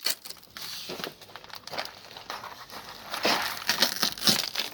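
Plastic being pulled off and crumpled, an irregular crinkling and crackling with louder crackles near the end.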